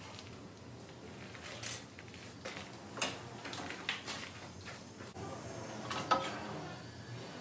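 A few light knocks and clinks, scattered and irregular, over a faint steady low hum.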